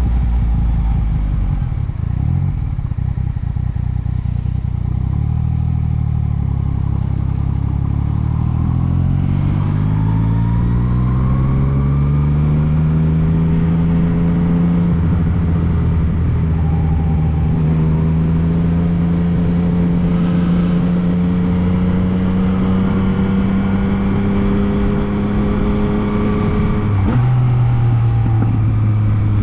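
Yamaha MT-09 three-cylinder motorcycle engine pulling steadily under throttle, its pitch rising smoothly for about ten seconds and then holding at a steady cruise. Near the end it drops suddenly to a lower note.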